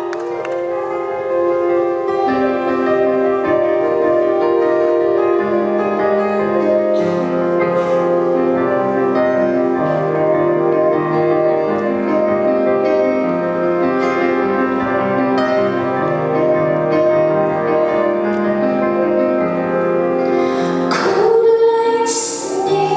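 Live solo keyboard playing held chords over a slowly stepping bass line. A woman's singing voice comes in near the end.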